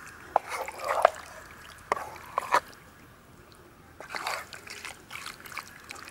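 Wooden spatula stirring raw marinated chicken pieces in a pan: wet squelching in a few separate strokes, with sharp taps of the spatula against the pan.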